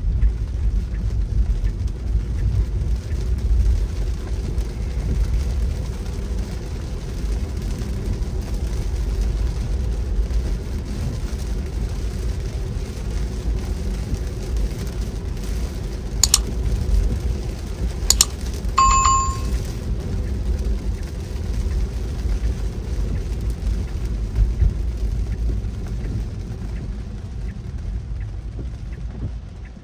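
Steady low rumble of a car driving, road and engine noise as heard from the moving vehicle. A little past halfway come two sharp clicks, then one short bell-like chime.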